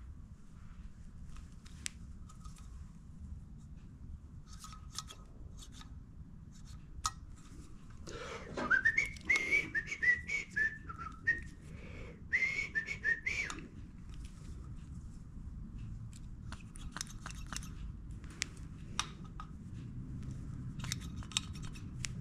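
A man whistling a short tune, two phrases of stepping notes about a third of the way in. Light clicks and taps of small metal parts being handled are scattered through the rest.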